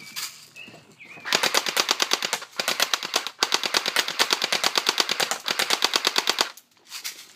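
Airsoft P90 BB gun firing on full auto, a rapid rattle of about a dozen shots a second. It fires in a few long bursts with short breaks, then a brief burst near the end.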